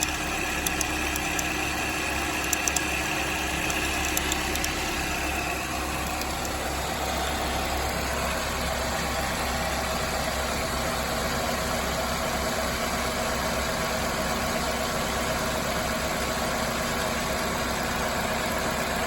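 2007 Chevy Cobalt's 2.2 L Ecotec four-cylinder engine idling steadily, with sharp clicks and a high whine over the first five or six seconds. The engine has a broken timing chain guide, and the owner suspects a bad tensioner or chain as well.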